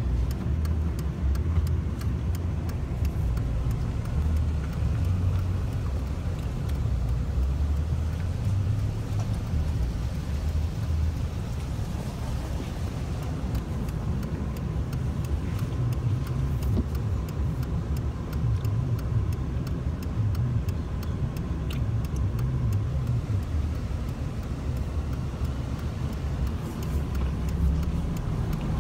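Steady low rumble of a vehicle's engine and tyres heard from inside the cabin while driving.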